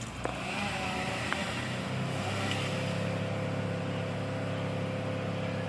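An engine running steadily, settling into an even drone about two seconds in, with a couple of short sharp clicks before that.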